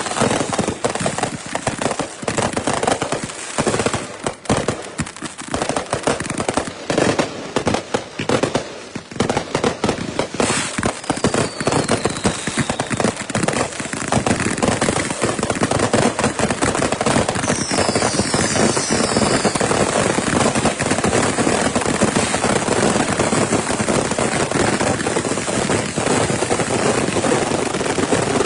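Consumer fireworks going off in a dense, continuous barrage of rapid crackles and pops, sparser and choppier at first and then steady and unbroken from about halfway. Three short falling whistle tones sound over the crackling.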